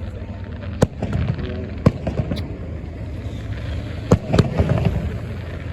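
Fireworks show: shells bursting in a series of sharp bangs, about five, with a steady rumble and crackle between them.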